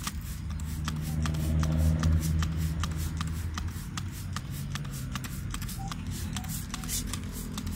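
Hand trigger spray bottle pumped in rapid squirts, several short spurts a second, over a steady low hum.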